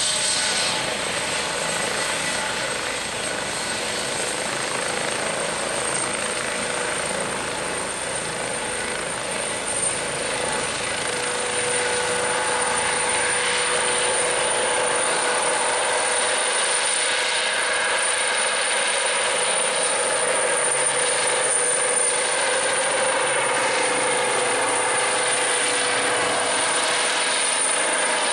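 Airbus H135 (EC135) twin-turbine helicopter with a fenestron tail rotor, running at flight power as it lifts off and climbs. A steady high turbine whine sits over dense rotor noise, which grows a little louder about eleven seconds in.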